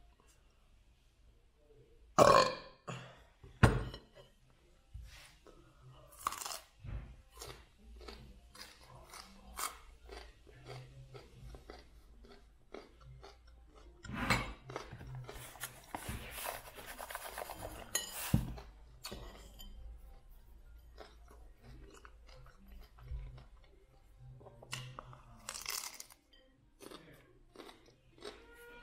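Raw broccoli being bitten and chewed: irregular crunches and mouth noises, the loudest bites coming a couple of seconds in, about four seconds in, and again around fourteen and eighteen seconds.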